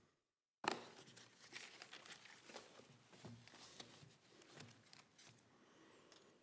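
Papers and a legal pad set down on a lectern and shuffled close to its microphone. After a brief dead gap there is a sharp knock about half a second in, then irregular rustling and light taps that thin out near the end.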